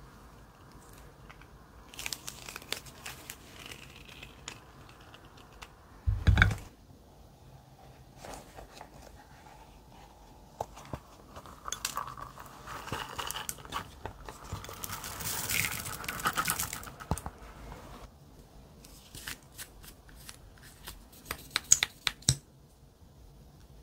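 Hands handling small plastic makeup cases and tubes: irregular crinkling, tearing and clicking of plastic as they are opened. There is one heavy knock about six seconds in and a quick run of sharp clicks near the end.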